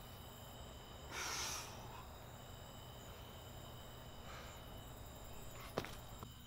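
A man's forceful breath out during pull-ups, loudest about a second in, with a fainter breath a few seconds later. Near the end comes one short sharp knock as he drops from the bar.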